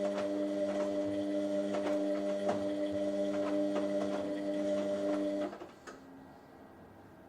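Washing machine running: a steady motor hum with irregular clicks and ticks over it, stopping suddenly about five and a half seconds in.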